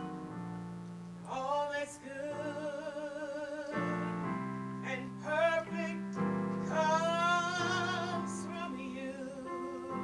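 A woman singing a gospel song with vibrato in several held phrases, over sustained keyboard chords.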